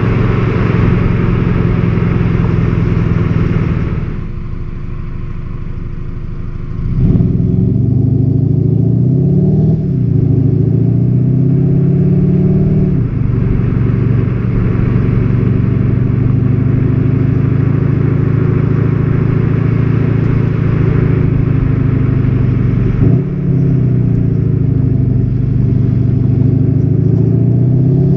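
Volkswagen Golf 7 GTD's 2.0-litre four-cylinder turbodiesel under way. The engine note eases off briefly, then rises again under acceleration, dropping back at each upshift. It holds a steady note for several seconds at cruise before another shift and a final climb in revs.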